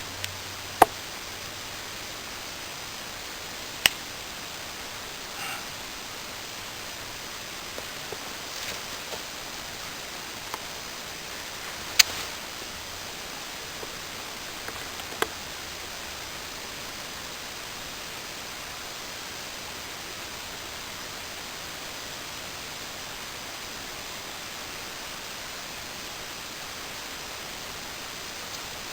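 Glass being knapped with a Swiss Army Knife: a few sharp, separate clicks with a bright ring, the loudest about a second, four, twelve and fifteen seconds in, with fainter ticks between, over a steady hiss.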